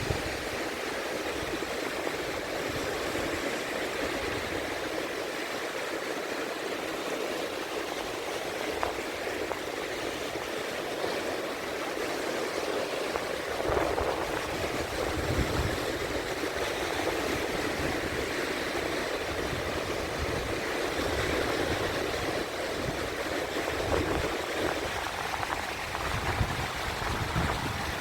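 Sea waves washing and rushing continuously with no break. Low rumbles come and go in the second half.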